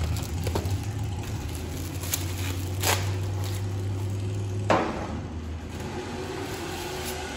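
Plastic packaging of a new multi-layer steel head gasket crinkling as it is opened, with a few sharp crackles about two, three and five seconds in. A steady low hum sits underneath.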